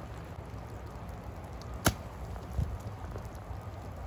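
A golf iron strikes the ball from the wet rough with one sharp crack about two seconds in, followed half a second later by a dull thump, over a steady low background rumble.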